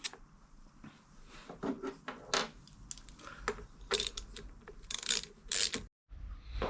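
Handling noise: a run of irregular scrapes, rubs and knocks as things are moved and set in place. Near the end the sound drops out for an instant, then a steady low hum begins.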